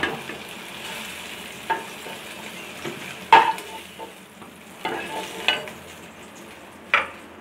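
Hot oil sizzling in a nonstick kadai as fried potatoes are lifted out with a spatula, which knocks and scrapes against the pan several times.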